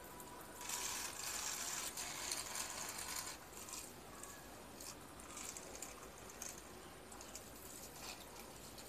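A thin stream of water pattering and splashing onto plant leaves and potting mix in small plastic cups: a steady splashing for about three seconds, then in shorter spurts as the stream moves from cup to cup.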